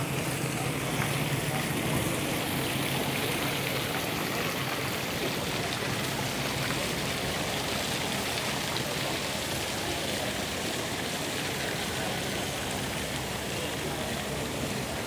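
Tiered stone fountain splashing steadily into its basin, an even rushing hiss of falling water.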